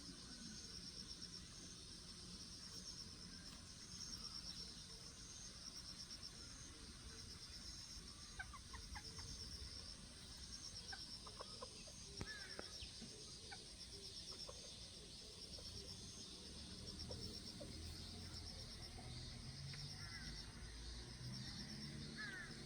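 Faint backyard ambience: insects chirp steadily in a high pulsing trill. Small chickens give soft, scattered clucks and peeps from about eight seconds in.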